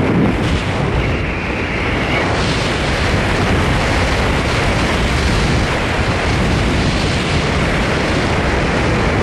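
Loud, steady wind rushing over a skydiver's helmet-camera microphone during the descent under an open parachute.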